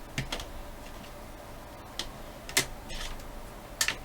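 A handful of sharp clicks and clacks from handling small hardware on a workbench, such as test leads and a bench power supply being set up. The two loudest come near the end.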